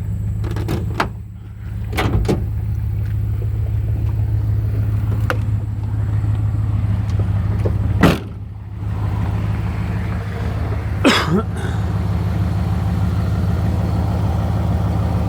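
1989 Dodge Ramcharger engine running steadily, with a few short clicks and a brief chirp that slides down in pitch about eleven seconds in. The chirp is the intermittent squeal that comes and goes with throttle position.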